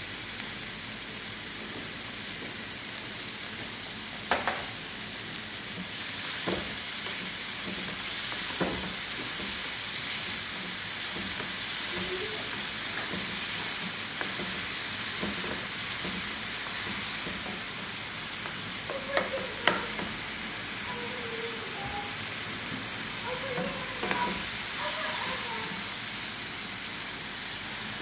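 Chicken hearts sizzling in oil in a frying pan as they are stirred with a wooden spoon, with a steady frying hiss and a few sharp knocks of the spoon against the pan.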